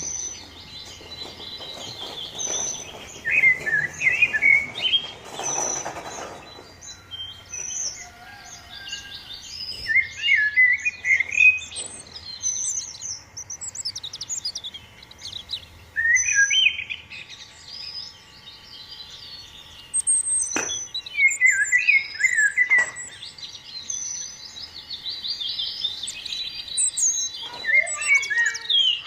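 Several small aviary birds chirping and calling at once, with quick high chirps and short trills overlapping one another. A brief rustling noise comes about five seconds in, and a couple of sharp clicks come later on.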